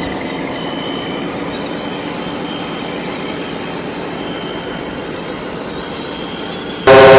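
RC model truck running steadily, with a faint high whine over an engine-like hum. Near the end a loud, sustained horn blare with several tones starts abruptly.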